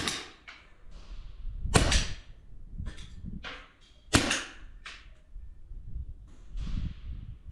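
Crosman 600 CO2-powered .22 repeater air pistol firing four sharp shots, each two to three seconds apart. Fainter strikes sound in between.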